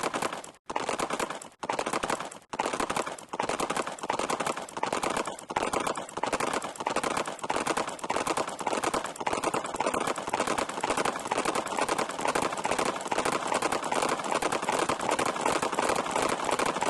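Rapid clattering of many sharp clicks, broken into short runs about once a second at first, then merging into one unbroken, denser clatter.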